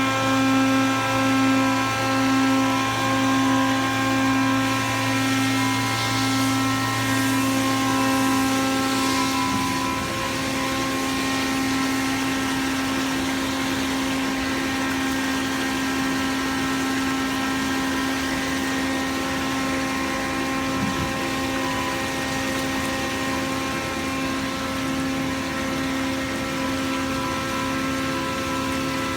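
Enshu five-axis CNC milling machine running, a steady mechanical hum made of several constant tones. A lower hum stops about ten seconds in while the rest runs on.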